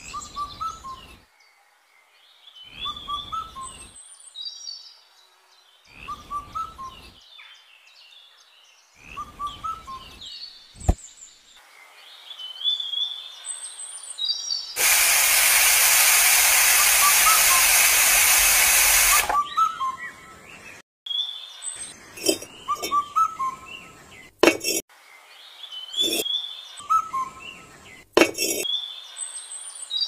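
Birds chirping in a short pattern that repeats every three seconds or so. Midway a loud, even hiss lasts about four seconds, and in the second half small clay bricks clink as they are picked up and set down.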